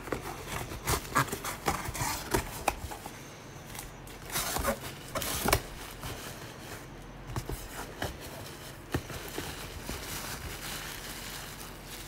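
Cardboard shipping box being opened by hand: flaps scraping and folding back, and bubble wrap crinkling as it is handled and pulled out, an uneven run of sharp crackles and scrapes, loudest about four to five seconds in.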